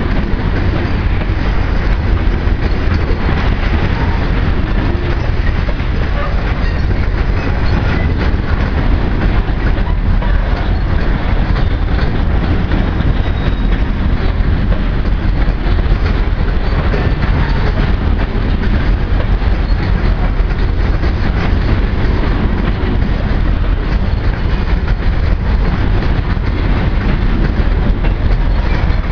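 Loaded covered hopper cars of a heavy grain train rolling past: a steady rumble of steel wheels on rail, with many fine clicks and clacks from the wheels and cars.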